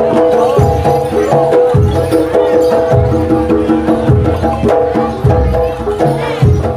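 Loud live jaranan (kuda lumping) music from an East Javanese ensemble, played through a sound system. Deep drum strokes come about once or twice a second under a held, repeating melody.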